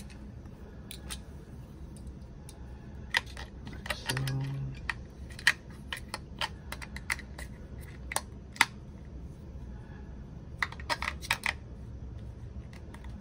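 Scattered small plastic clicks and taps as three small batteries are pressed into the battery compartment in the base of an LED sensor soap dispenser, with a quicker run of clicks near the end.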